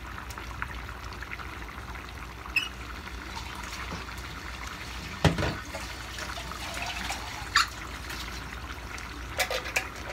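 Tomato-sauce chicken stew with potatoes and yellow bell pepper simmering in a pan on a gas burner, a steady bubbling hiss. A sharp knock comes about five seconds in, and a few light clicks near the end.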